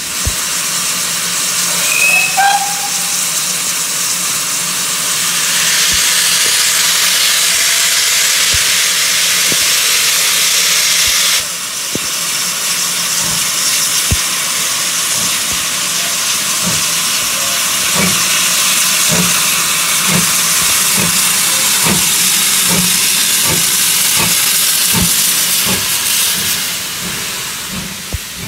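Steam locomotive venting steam in a loud, continuous hiss as it sets off, with its exhaust beats coming in as regular chuffs, about one and a half a second, over the last third.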